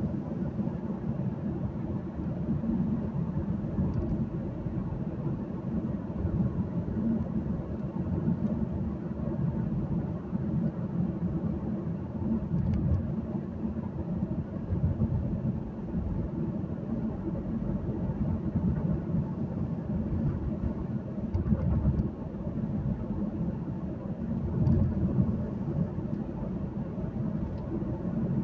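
Steady low rumble of a car driving along a road, heard inside its cabin: engine and road noise with small swells in loudness.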